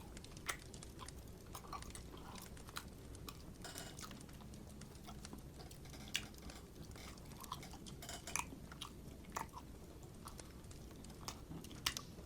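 A person chewing food with the mouth close to the microphone: faint wet smacks and small clicks at irregular moments.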